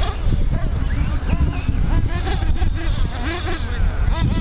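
Small nitro engines of radio-controlled off-road buggies buzzing, revving up and down again and again as the cars race round the track, over a heavy rumble of wind on the microphone.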